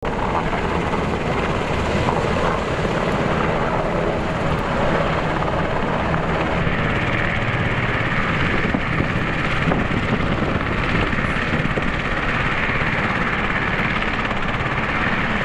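Helicopter running steadily, with rotor chop and turbine noise.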